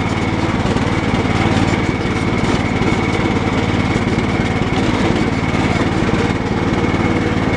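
Cub Cadet 1018 lawn tractor engine running steadily, with a thin, steady high whine above it.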